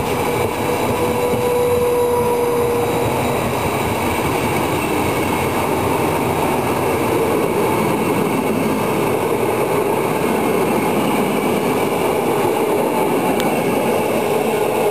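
Trenitalia passenger coaches rolling past close by: a loud, steady rumble of steel wheels on the rails. A held whine sounds over it and fades out about three seconds in.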